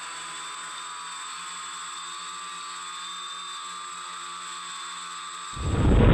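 Electric motors and propellers of a multirotor drone in flight, a steady whine. About five and a half seconds in, a much louder rush of noise cuts in over it.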